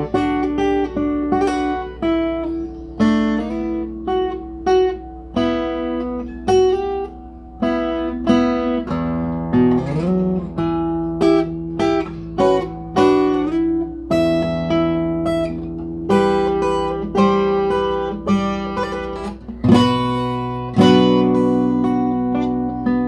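Guitar being played solo: single picked notes and chords, each ringing and fading, with a few notes sliding up in pitch. A steady low hum runs underneath.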